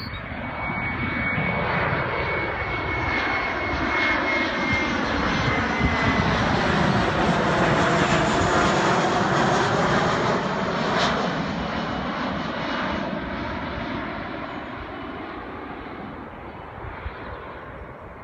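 Boeing 737-400's CFM56 turbofan engines on final approach, passing low overhead. The jet noise swells to its loudest about eight seconds in, then fades as the aircraft moves away. A high whine fades out about five seconds in.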